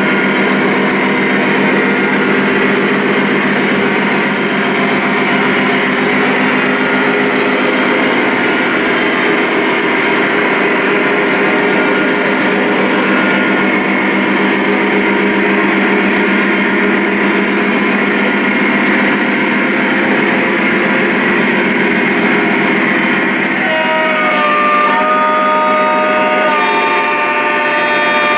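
Lionel Legacy ES44 model locomotives' onboard RailSounds playing a steady diesel engine drone through their speakers. About four seconds before the end, the horn chord sounds.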